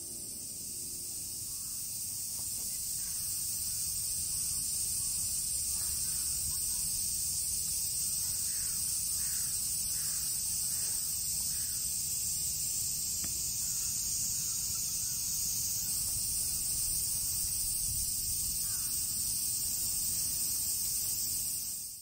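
Outdoor field ambience: a steady high-pitched insect chorus with a low rumble of wind underneath. Near the middle, a bird calls about five times in quick succession.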